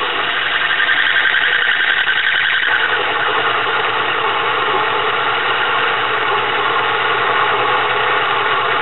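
Small metal lathe running steadily with a whirring hum and a high whine while its cutting bit takes a very light pass, about half a thousandth, turning down a steel shaft.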